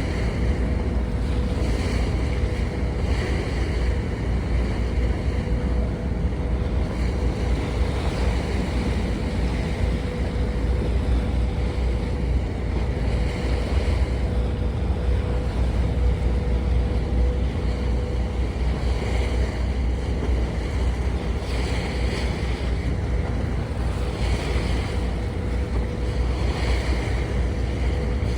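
Boat's engine running steadily, heard from on board as a low rumble with a faint steady hum, mixed with wind on the microphone and water washing past the hull in soft swells every few seconds.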